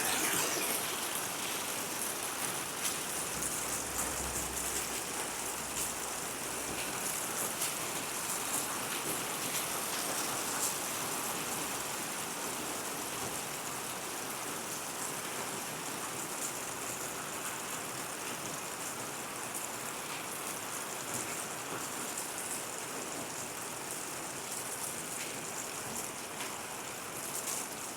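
Hail falling steadily: a dense patter of many small hits over a continuous hiss, a little heavier in the first half.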